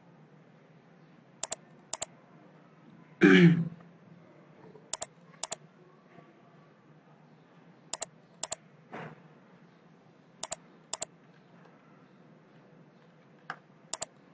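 Sharp clicks of a computer mouse, coming in pairs about half a second apart every few seconds. About three seconds in there is one louder, short throat clearing.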